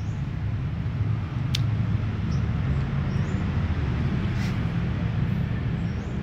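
A steady low rumble of background noise with three sharp clicks.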